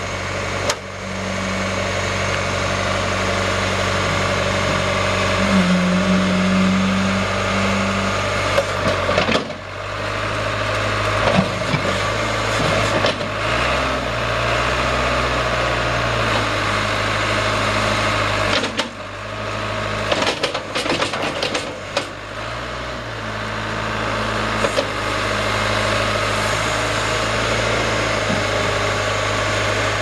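1986 John Deere 410C backhoe loader's diesel engine running steadily while the boom and front loader bucket are worked. The engine note shifts and dips several times, with a brief drop near the middle and a cluster of sharp clicks about two-thirds of the way through.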